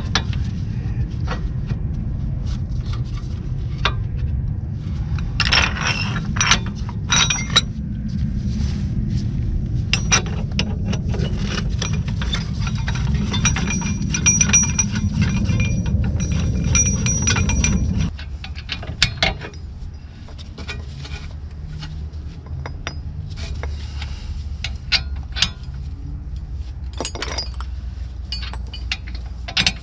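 Metal tool parts clinking and clicking as a press-type wheel bearing tool is fitted to the rear hub and tightened with a ratchet. A steady low rumble underneath cuts off suddenly a little past halfway.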